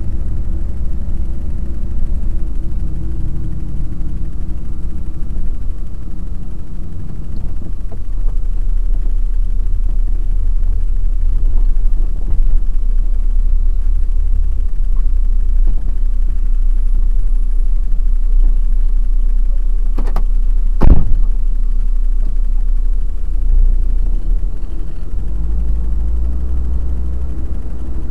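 Truck engine and road rumble heard from inside the cab while driving, with two sharp knocks about twenty seconds in, the second the loudest.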